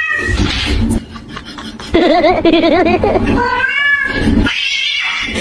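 Domestic cat yowling: a drawn-out, wavering cry about two seconds in, then a shorter, higher cry that rises and falls near the end.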